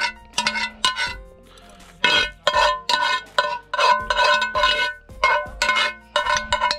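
A metal spoon stirring in a metal cooking pot, knocking and scraping against its sides about two to three times a second. Each knock rings briefly at the same few pitches, and there is a short pause about a second in.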